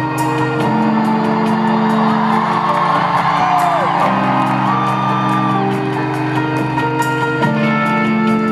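Rock band playing live in an arena: held keyboard chords with electric guitar and steady hi-hat ticks. Whoops and whistles from the crowd rise over the music in the middle.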